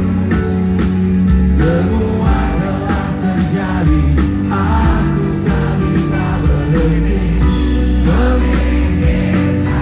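A rock band playing live, with singing over bass, guitars and a steady drum beat.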